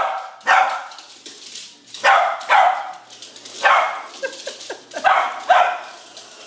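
Small dog barking in quick pairs, about seven barks, at a remote-control toy car in play.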